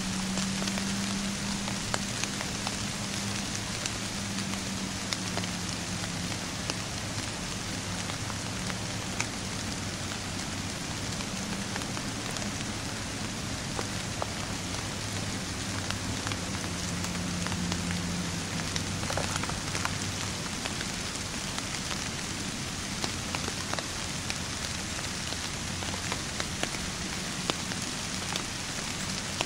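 Steady rain pattering, a constant hiss full of tiny drop ticks. A low hum comes and goes underneath it over roughly the first two-thirds.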